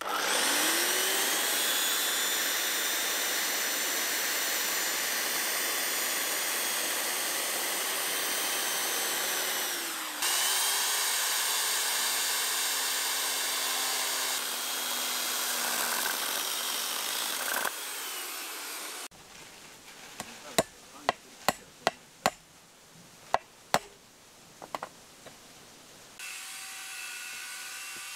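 Corded electric chainsaw spinning up and cutting through wooden stakes in two runs, a high steady motor whine each time, the first about ten seconds long. Then, after a break, a string of a dozen or so sharp knocks.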